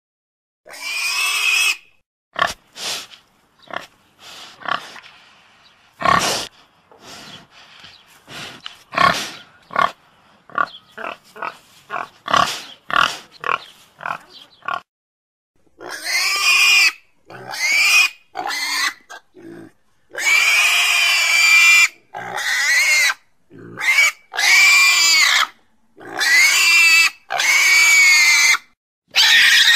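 Domestic pig grunting in many short, quick bursts, then, about halfway through, letting out a string of loud, high-pitched squeals of a second or two each.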